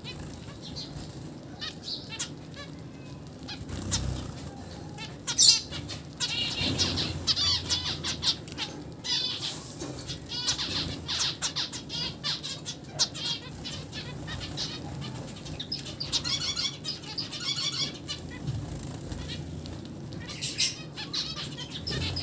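A flock of zebra finches chirping constantly with short repeated calls, with wings fluttering as the birds jostle over seed. There is one sharp click about five seconds in.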